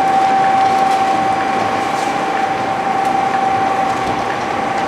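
Double-shaft shredder, driven by two 30 kW electric motors through gearboxes, running under load as it tears up a cardboard bale: a steady high whine over a dense, continuous grinding noise with a few small cracks.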